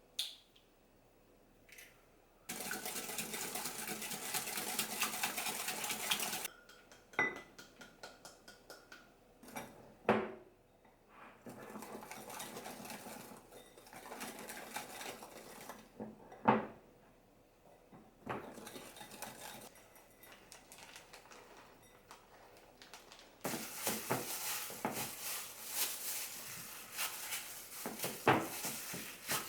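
Kitchen work: dishes, pots and metal utensils clinking and knocking, with long stretches of a steady rushing noise in between.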